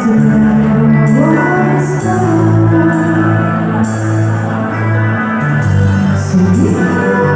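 A live band playing amplified music at a sound check, with sustained bass notes under guitar, and rising pitch slides about a second in and again near the end.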